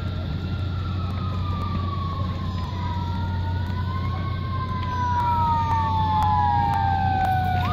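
Emergency-vehicle sirens wailing, two or more at once, their pitch sliding slowly up and down and mostly falling, over a steady low rumble. They grow a little louder about five seconds in.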